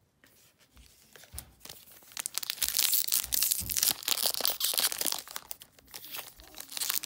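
Foil Kaldheim booster pack wrapper torn open and crinkled by hand: a run of crackling, crinkly tearing from about two seconds in.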